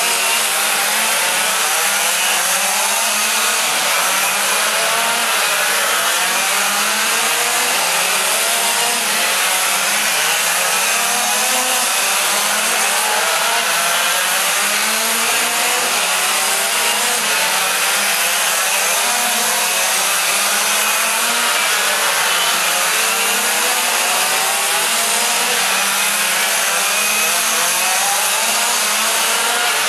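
Several quarter-scale RC race cars' small engines buzzing together as they lap, each one rising and falling in pitch as it speeds up and slows for the turns, overlapping without a break.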